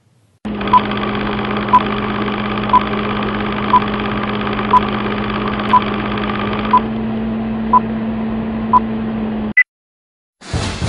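Film-leader countdown sound effect: a film projector running with a steady mechanical whir, and a short high beep once a second, nine beeps in all. Near the end comes one brief higher blip, then the sound cuts off suddenly.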